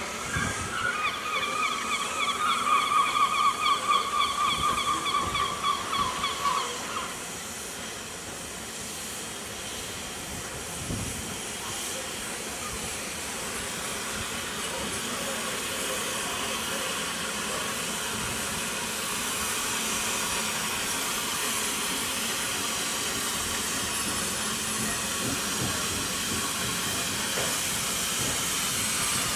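Isle of Man Steam Railway steam tank locomotive sounding its whistle for about seven seconds, a wavering tone that dips in pitch as it cuts off. After it comes a steady hiss of steam that grows louder as the engine approaches.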